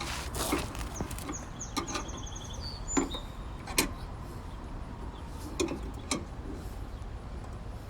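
Sharp metallic clicks and knocks, about four loud ones, as the car is let down off the jack. A quick run of high chirps about a second and a half in.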